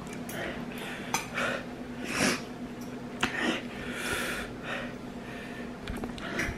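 Sniffling and hard breathing in short breathy puffs every half second to a second, the reaction of people whose mouths and noses are burning from extremely spicy ramen. Two or three light clicks are heard among the breaths.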